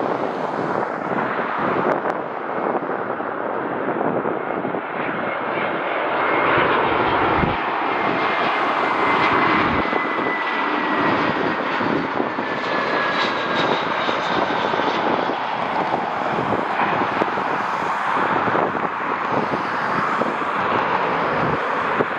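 A passing airliner's engines: steady engine noise that grows loudest about a third of the way in, with a high whine slowly falling in pitch as the aircraft goes by.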